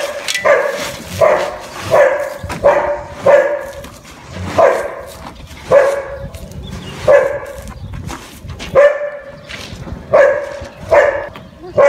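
A dog barking over and over, about one bark a second, each bark short and sharp-edged.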